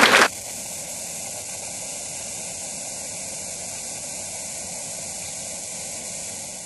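Applause and talk cut off abruptly just after the start, leaving a steady static hiss.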